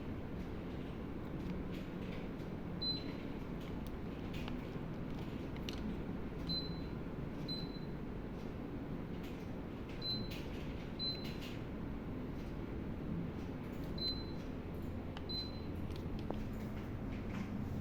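Daikin air conditioner giving seven short high beeps, as it does on receiving remote-control commands, over a steady low hum, with scattered light clicks.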